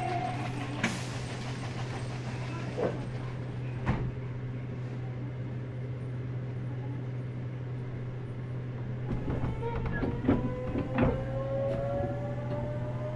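Meitetsu 100 series electric train standing with a steady low hum and a few sharp knocks, then about nine seconds in its Mitsubishi GTO-VVVF traction inverter starts with a whine that rises steadily in pitch as the train begins to pull away from the station.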